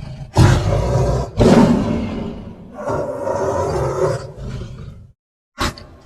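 Beast roar sound effects: two loud roars that start sharply, one about a third of a second in and one about a second and a half in, then a longer roar from about three seconds to four. After a moment of complete silence, a short burst comes near the end.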